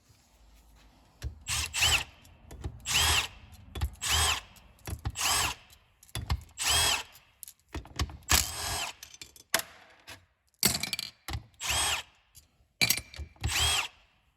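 Power drill run in about ten short bursts, each rising and falling in pitch, undoing the bolts on the housing of an S300V turbocharger.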